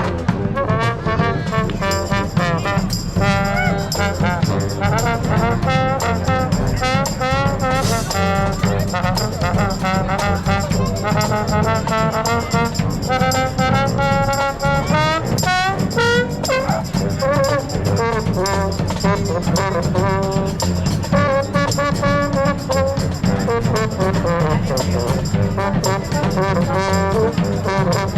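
Brass band playing a tune live, with several horns in harmony over a steady bass line.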